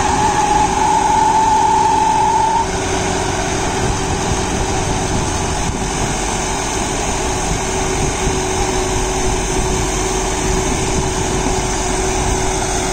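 John Deere 5075E tractor's 2.9-litre common-rail diesel engine running steadily under load, driving a PTO rotary tiller that is mulching banana stalks into the soil. A higher whine over the drone stops about two and a half seconds in.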